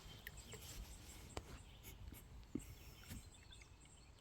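Near-silent outdoor ambience with a few faint, isolated clicks and faint high bird chirps.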